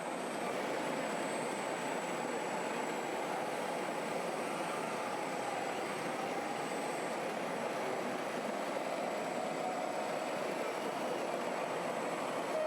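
Steady mechanical din of RC model trucks and construction machines at work, with faint wavering motor whines over it.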